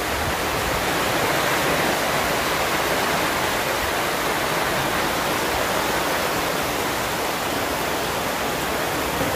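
Heavy rain pouring down onto a tent canopy: a loud, steady hiss of downpour.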